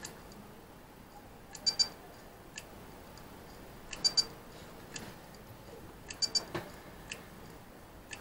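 WD My Passport hard drive squeaking: short, high chirping bursts repeat about every two and a half seconds, with faint single clicks in between. The repairer takes the squeak as the sign of a faulty head.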